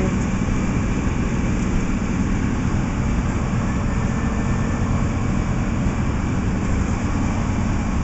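A heavy engine running with a steady low rumble that does not change.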